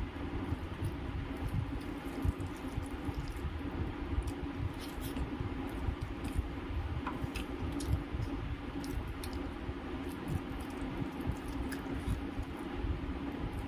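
Fingers squishing and mixing cooked rice with potato-and-paneer curry on a steel plate, with scattered small wet clicks and chewing, over a steady low hum.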